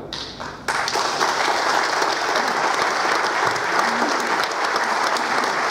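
Audience applauding: the clapping breaks out suddenly under a second in and then holds steady and dense.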